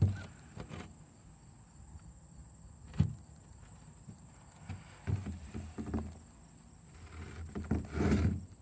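Handling noise from a carved stone bowl being turned and moved about: a sharp knock about three seconds in, scattered low bumps, and a louder rough scraping near the end.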